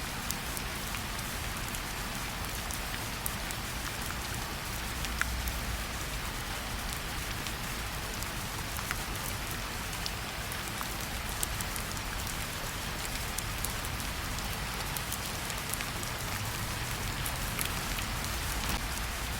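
Steady rainfall: an even hiss with scattered sharp ticks of single drops.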